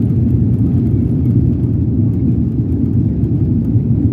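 Steady, loud low rumble inside the cabin of a Boeing 787 on its takeoff roll: the engines at takeoff thrust together with the wheels rolling fast on the runway.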